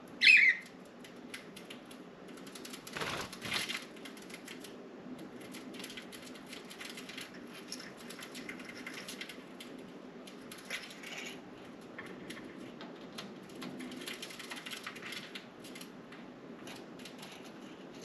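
Budgies: one loud sharp chirp right at the start, then a long run of light clicks, ticks and scratching with faint chatter, and a brief rustling burst about three seconds in.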